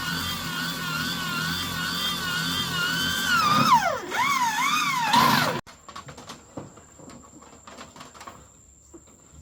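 A power tool's electric motor whining, its pitch wavering and then dipping and recovering as it bogs under load. It cuts off suddenly about five and a half seconds in, leaving insects chirring and a few light clicks.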